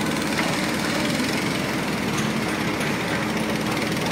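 A motor running steadily with an even, engine-like drone and no change in speed.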